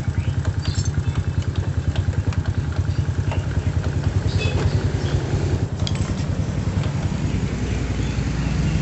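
Honda Supra's single-cylinder four-stroke motorcycle engine idling, with a fast, even pulsing beat.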